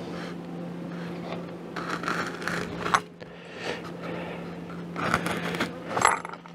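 Polystyrene foam insulating panels being handled on a beehive lid, with short bursts of scraping and rustling and a sharp click about three seconds in, over a steady low hum.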